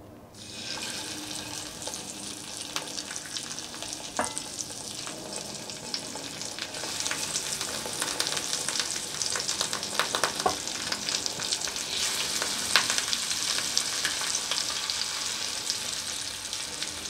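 Masala-coated fish pieces sizzling and crackling in hot mustard oil in a cast-iron skillet. The sizzle starts as the first piece goes in about half a second in and grows louder after about seven seconds as more pieces are added.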